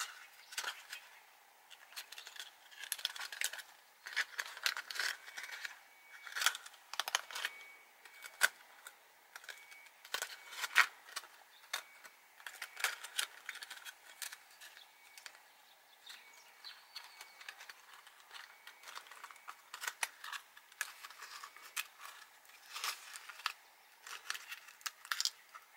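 Thin clear plastic bottle crackling and crinkling in irregular snaps as hands squeeze and work it around a plant's bare roots.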